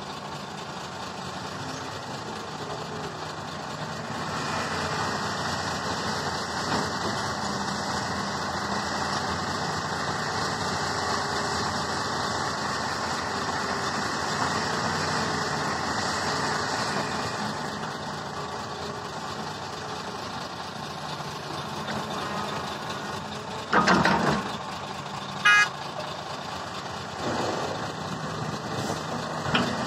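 Diesel engines of a Hitachi ZX350-5G excavator and a large dump truck running steadily while the excavator works. The sound grows louder for several seconds after the first few seconds, then eases. Near the end come two short loud sounds about a second and a half apart, the second a brief horn toot.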